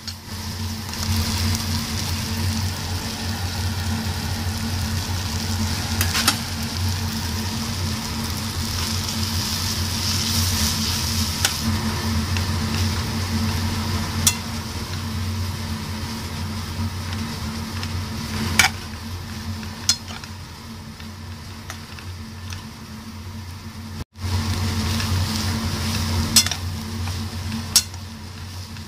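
Tomatoes, green chillies and coriander stalks sizzling in a non-stick pan as a metal spatula stirs and scrapes them, with several sharp taps of the spatula against the pan. A steady low hum runs underneath.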